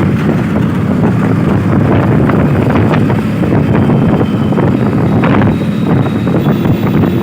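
Strong wind buffeting the microphone over a steady low rumble of passing vehicles, with brief crackles throughout.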